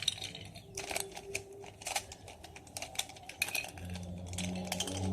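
Plastic Rubik's cube pieces clicking and clacking in irregular snaps as the cube is twisted and prised apart. A low steady hum comes in near the end.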